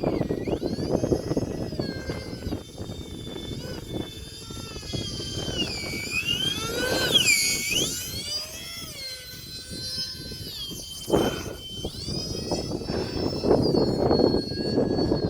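Electric ducted fans of a small UMX A-10 RC model jet whining in flight, the high pitch dipping and rising several times with throttle, over low wind buffeting on the microphone.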